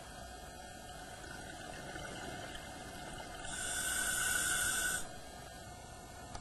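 Scuba diver breathing through a regulator: one hissing inhale lasting about a second and a half, starting a little past the middle, over a steady background hum.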